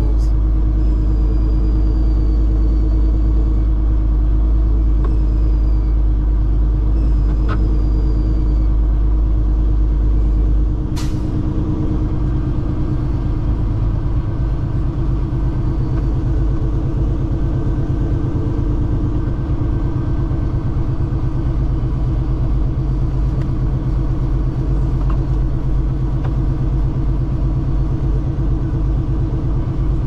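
Semi truck's diesel engine running as the truck rolls slowly, heard from inside the cab as a steady low drone. About eleven seconds in there is a sharp click and the deepest part of the drone drops away.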